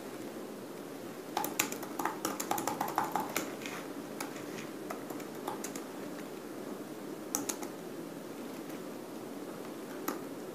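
Typing on a laptop keyboard: a quick run of key clicks starting about a second and a half in and lasting about two seconds, then a couple of clicks near the middle and one more near the end, over steady room noise.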